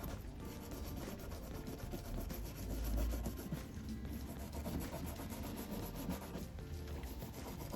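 Continuous rubbing and scrubbing on bicycle parts during cleaning and degreasing.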